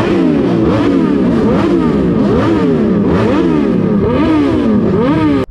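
Sport motorcycles revving with repeated throttle blips, the engine pitch rising sharply and falling back several times.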